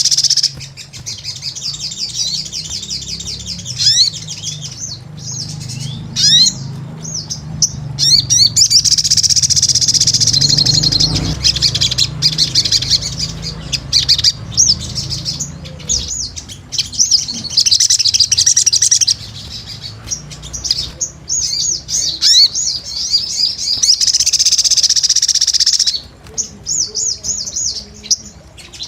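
Crimson sunbird (sogon) singing energetically: rapid, high-pitched twittering and chirps broken by several longer, sustained trills.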